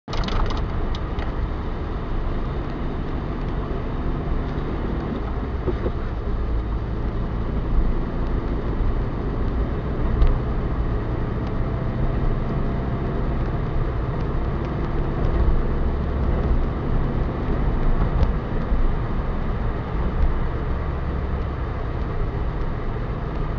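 Engine hum and road noise heard inside a car's cabin while driving along at a steady pace, with a couple of brief knocks.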